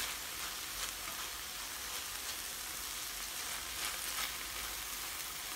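Ground pork and chopped wood ear mushroom filling sizzling steadily in a frying pan, with a few faint scraping strokes as it is stirred.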